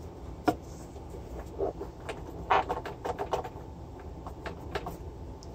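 A rag being rubbed over a turntable's centre spindle to clean off baked-on crud, with short rubbing scrapes and scattered clicks as fingers handle the spindle and deck.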